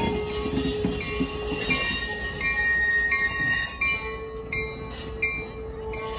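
Passenger train cars rolling past, their steel wheels squealing on the rails in several high, steady tones that switch on and off from about two seconds in, over a lower steady tone.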